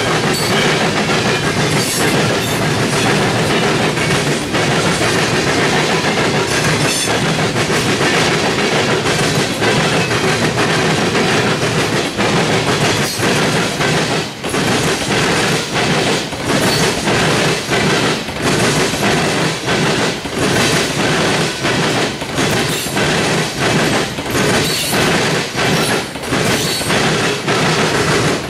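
Freight cars of a CSX trash train rolling past: a loud, steady rumble of steel wheels on rail, broken by irregular clacks and knocks as the wheels pass.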